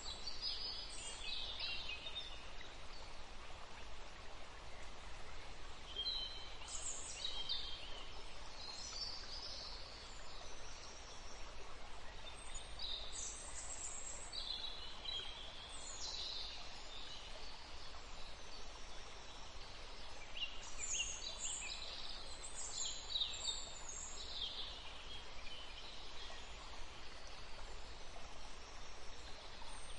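Small birds chirping and calling in scattered clusters over a steady background hiss.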